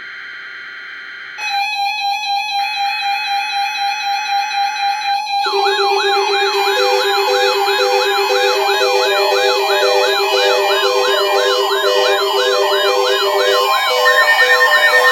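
Layered electronic emergency-alert tones. A buzzy digital burst is joined about a second and a half in by a steady tone. From about five seconds in, several warbling siren tones and a pulsing beep pile on, and one more steady tone enters near the end.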